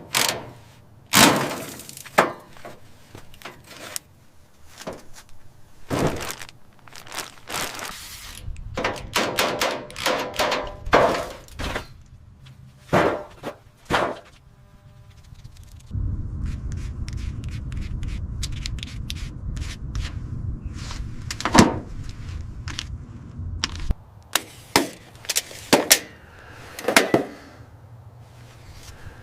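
A long series of separate knocks and thunks, some in quick clusters, with a steady low hum for several seconds in the middle.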